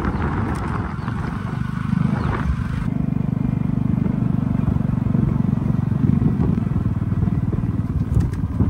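Small motorbike engine running at a steady riding speed, heard from the pillion seat as a low, fast-pulsing drone. A rushing noise eases about three seconds in.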